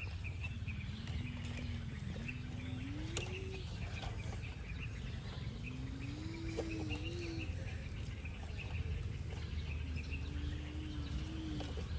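Three drawn-out, wavering low calls, each a second or two long and a few seconds apart, over steady outdoor background noise.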